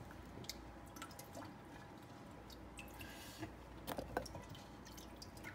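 Rinsed raw potato chunks dropped by hand into a slow-cooker crock, landing with scattered soft knocks on the frozen mixed vegetables and other potatoes. The two loudest knocks come around four seconds in.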